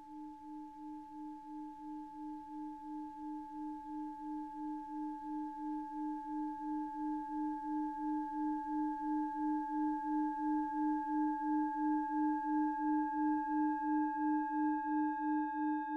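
Singing bowl ringing: a sustained low hum that wavers about three times a second, with two higher overtones, swelling slowly louder.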